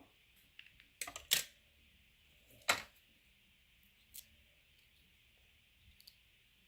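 A few sharp plastic clicks and knocks as small pieces of a plastic anatomy model are handled and fitted into place, the loudest about two and a half seconds in, over a faint steady hiss.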